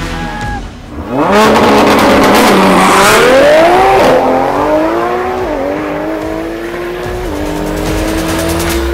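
Turbocharged drag car launching hard about a second in and accelerating flat out. The engine pitch climbs, drops back at upshifts about four, five and a half and seven seconds in, and climbs again each time. The launch carries slight wheelspin.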